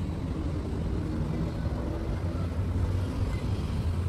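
Ford Mustang convertible's power soft top closing, over the steady low hum of the car running.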